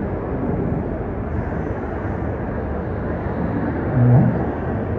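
Steady background din of a crowded event hall, with a man's voice heard briefly into a microphone about four seconds in.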